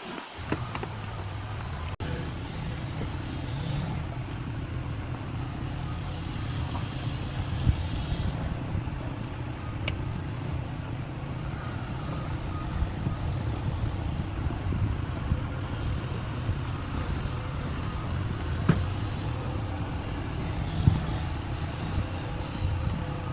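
A vehicle engine running steadily with a low rumble, with a few faint clicks.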